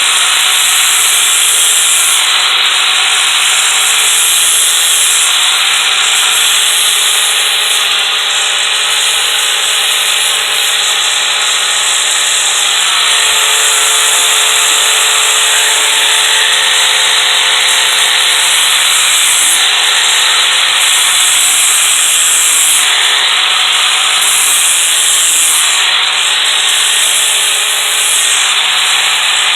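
Sanding disc on a power tool running against the rails of a steel Stihl chainsaw guide bar, a steady grinding rasp over a motor hum, lightly dressing a burr off the bar's edges.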